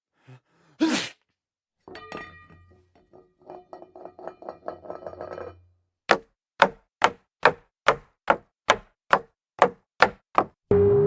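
A string of separate sound effects: a short voice-like sound, a clattering run of small knocks with ringing tones, then eleven sharp, evenly spaced knocks at a bit over two a second. A ringing gong-like tone starts just before the end.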